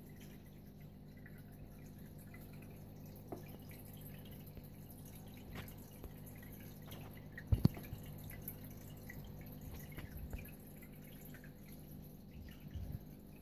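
Aquarium water gently dripping and trickling over a steady low equipment hum, typical of a running tank filter. A sharp double knock about seven and a half seconds in.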